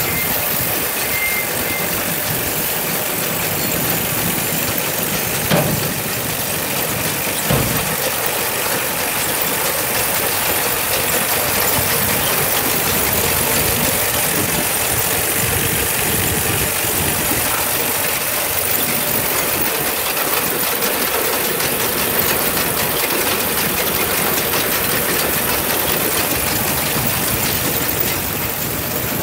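Tractor engine idling steadily, with two short knocks about five and a half and seven and a half seconds in.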